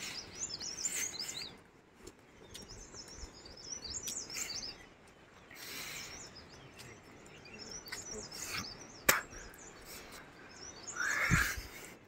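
Small birds chirping in quick, high twittering phrases that come and go several times, with a single sharp click about nine seconds in.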